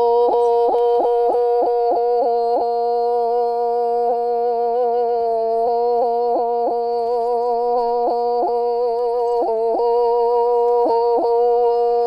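A woman's voice holding one long, steady note, broken again and again by quick yodel-like catches in the throat. The catches come several a second at first, thin out in the middle, and cluster again near the end: an ornament typical of Sakha (Yakut) traditional singing.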